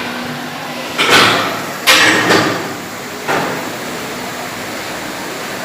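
Four sharp knocks or clunks in the first few seconds, each dying away quickly, over a steady background noise.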